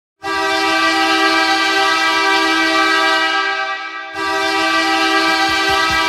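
Bakersfield Condors arena goal horn: a loud, steady horn chord of two low notes in two long blasts. The first starts a moment in and dies away after about three and a half seconds; the second cuts in right after.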